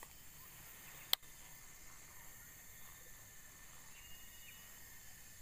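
Steady chorus of insects, with faint high tones holding throughout. About a second in there is one sharp click.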